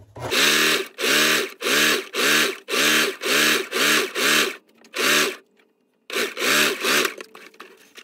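Singer sewing machine run in short, even spurts, about two a second, its motor whirring up with each spurt as a top-stitch seam is sewn. There is a brief pause about five and a half seconds in.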